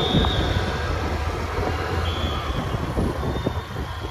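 Steady low rumble of wind buffeting the microphone of a moving handheld camera, with two brief faint high tones.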